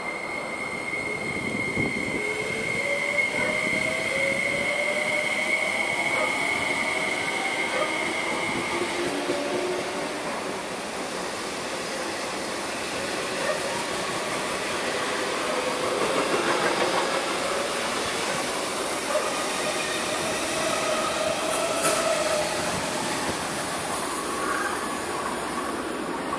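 MTR MLR (Metro-Cammell) electric multiple unit pulling out and gathering speed: its traction motors whine in rising pitch over the steady noise of wheels on the rails. A steady high tone stops about nine seconds in. Later a second train (an SP1900 EMU) comes in, with a few sharp clicks near the end.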